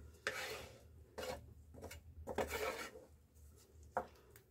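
Spatula stirring chicken keema and peas in thin gravy in a coated kadai, scraping and sloshing in a few faint, uneven strokes.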